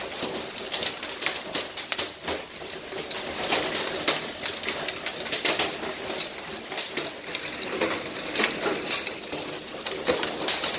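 Hail and heavy rain coming down, a dense, irregular patter of sharp ticks and taps over a steady hiss, heard from indoors through the window pane.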